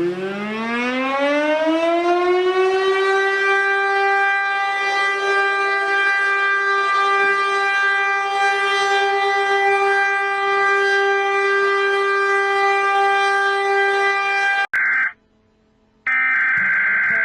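Civil-defense-style warning siren winding up in pitch over about two seconds, then holding one steady tone until it cuts off abruptly. After a second of silence, a shrill burst of Emergency Alert System data tones begins, the start of an alert header.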